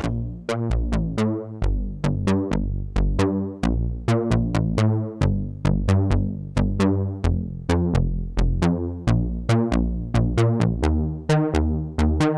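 Instrumental break of an upbeat pop song with no vocals: short, quickly decaying pitched notes and a bass line over a steady electronic beat, with a crisp tick about four times a second.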